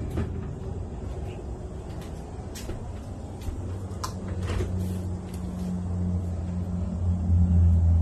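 A refrigerator door handled and pulled open: several sharp clicks as the handle is gripped, over a steady low hum that grows louder toward the end.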